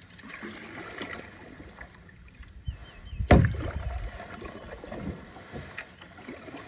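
Kayak paddle strokes working the water, with irregular splashes and drips and one sudden louder hit about three seconds in.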